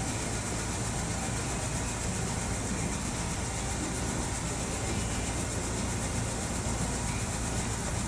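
Steady background noise, an even low rumble with a hiss over it and no distinct events.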